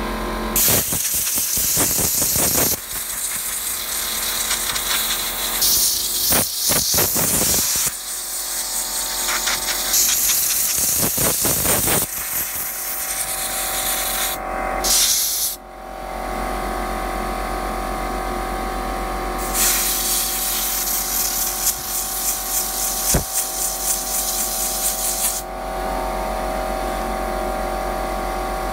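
Compressed-air blow gun blasting dust off the aluminium heatsink fins of an AntMiner S9 hashing board, in five bursts of hissing air from under a second to about six seconds long, the longest near the end. A steady hum with fixed tones runs underneath.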